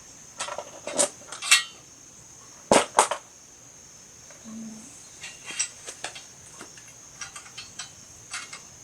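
Metal clinks and knocks from handling an FMF exhaust pipe and its fittings while fitting it to a pit bike: a cluster of sharp knocks in the first three seconds, the loudest two close together about three seconds in, then lighter scattered ticks.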